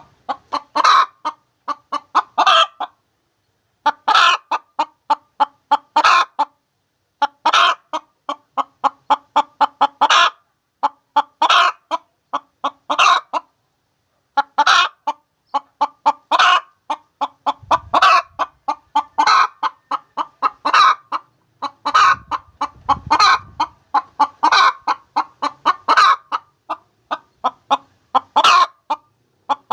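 A hen cackling: runs of quick short clucks, each ending in a louder, drawn-out squawk, repeating every second or two. It is the egg song hens give around laying.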